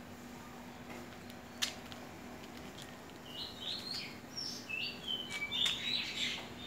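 A small bird singing: a run of short high chirps at shifting pitches through the second half. A single sharp click comes about a second and a half in, over a faint steady hum.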